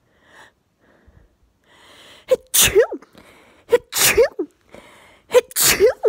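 A woman sneezing three times in quick succession during a sneezing fit, each sneeze preceded by a drawn-in breath and ending in a falling voiced tail.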